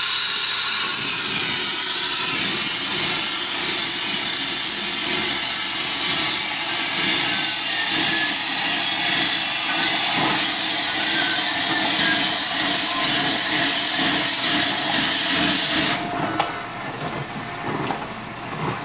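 Liquid nitrogen hissing as a NitroCream G6 ice cream machine's dispenser feeds it into the mixing bowl to freeze the ice cream mix. It is a loud, steady hiss that cuts off abruptly about sixteen seconds in.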